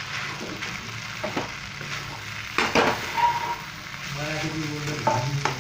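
Stir-fried vegetable noodles sizzling in a hot pan while a spatula gently tosses them, with a few sharp knocks and scrapes of the spatula against the pan, the loudest about two and a half seconds in.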